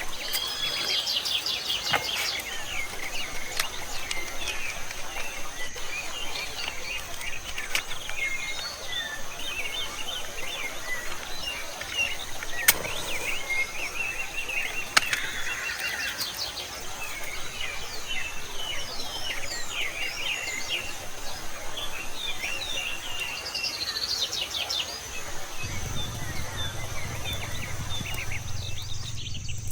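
Many small birds chirping and trilling over a steady high-pitched whine, with a few sharp clicks. A low hum comes in near the end.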